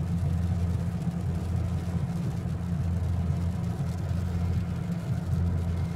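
Steady low drone of a car driving at highway speed, heard from inside the cabin: engine and road noise.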